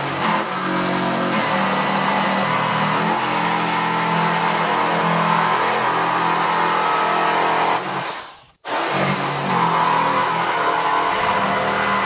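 Black & Decker jigsaw running steadily as it cuts across a 25 mm thick wooden benchtop. It stops about eight seconds in and starts again a moment later. It is fitted with a metal-cutting blade, the wrong type for cutting thick wood across the grain.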